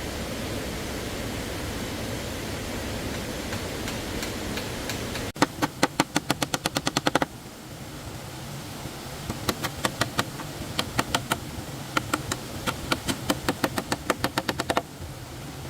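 Steady rush of stream water, then, after an abrupt cut, two runs of rapid, sharp, evenly spaced knocks at about six a second, the second run longer.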